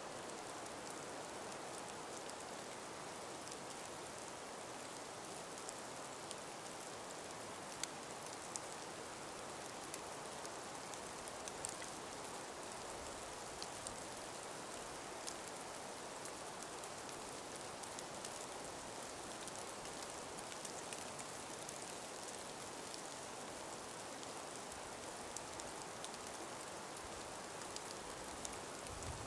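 Calm winter breeze through ice- and snow-laden forest trees: a faint, steady hiss, with scattered small ticks throughout.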